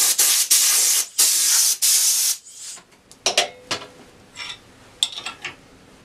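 Compressed-air blow gun hissing in several short blasts over the first two seconds or so, blowing wood shavings off the lathe's coring rig. After that, a few light clicks and knocks of metal parts being handled.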